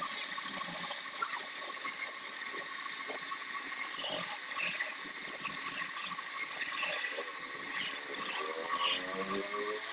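Wood lathe running with a steady whine while a turning tool scrapes and cuts the spinning wood, giving a rough hiss with uneven scraping bursts. Near the end a set of pitched tones slides up and down.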